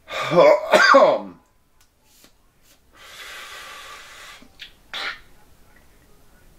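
A person draws a steady inhale through a vape pen fitted with a pre-filled cartridge, a hiss lasting about a second and a half, followed by two short, sharp breaths.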